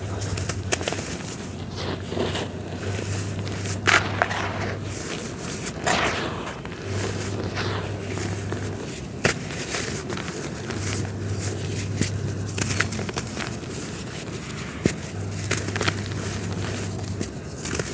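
Dry red dirt being crumbled: a steady run of crisp crackling and crunching, with louder crunches about four and six seconds in and a few sharp snaps.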